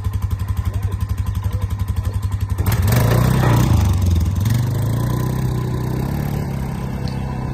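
A red utility ATV's engine idles with a fast, even throb while the quad rolls back down a metal trailer ramp. About three seconds in the engine revs up sharply as the rider pulls away, then runs steadily as the quad moves off across the pavement.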